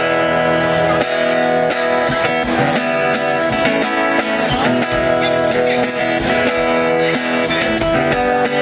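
Guitar strumming chords, played through a stage PA during a sound check.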